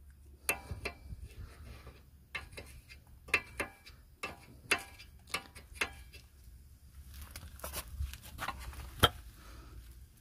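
Metal clicks and clinks of a ring spanner turning a nut on a VW Passat B5's front lower ball joint, a couple of irregular clicks a second with one sharper clink about nine seconds in, over a low steady hum.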